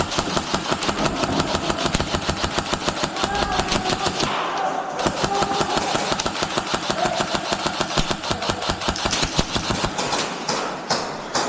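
Electric airsoft guns firing full auto: a fast, even stream of shots, many a second, with a short lull about four and a half seconds in.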